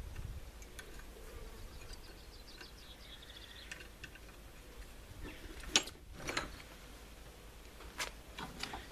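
Small metal parts being handled at the bench: a quick run of faint small clicks, then a few sharp clicks and knocks in the second half, over a low steady hum.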